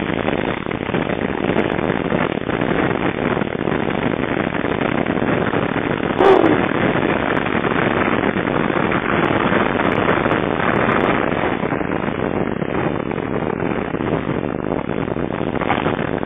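Steady wind and road noise of a moving car, heard from inside the cabin by the side window. About six seconds in, one short sound falls in pitch.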